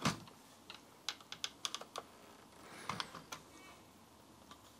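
Light, irregular clicks and taps of a marker pen and fingertips against the hard plastic of an instrument cluster housing as a cut line is drawn on it.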